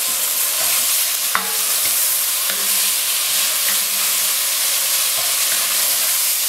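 Onion and spice masala with freshly added chopped tomatoes sizzling in oil in an enamelled pot, stirred with a wooden spoon. The hiss is steady, with a few light clicks of the spoon against the pot.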